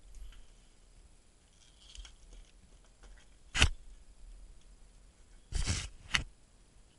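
Gear handling during a rope ascent with an ascender: faint ticks and rustles, then a sharp metallic click about three and a half seconds in, a brief scrape of about half a second near the end and a second sharp click right after it, as the gloved hands and climbing hardware move close to the camera.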